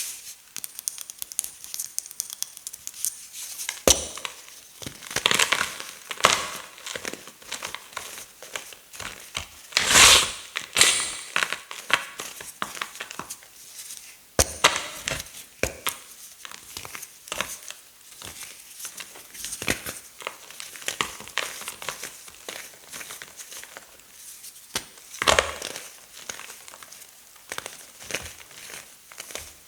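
Tough gym chalk mixed with silver glitter being crushed: an irregular run of dry crackles and crunches, with a few louder crunches at intervals.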